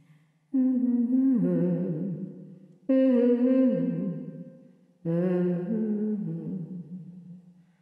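A voice humming a slow, wordless melody in three phrases of about two seconds, starting about half a second, three and five seconds in. Each phrase begins abruptly, steps down in pitch and fades out.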